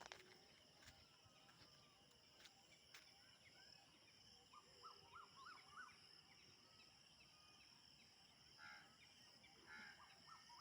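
Faint natural outdoor ambience: a steady high-pitched insect drone, with clusters of short bird chirps in the middle and near the end.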